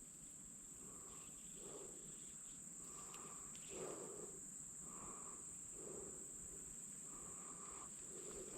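Insects, crickets by the sound, making a steady high-pitched drone, faint, with soft low sounds recurring about once a second underneath.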